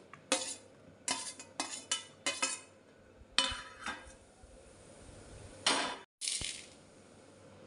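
Chopped onion pieces tipped from a steel plate into a steel bowl of bottle gourd pieces, with a run of short clinks and clatters of steel on steel. The sound cuts out for a moment about six seconds in.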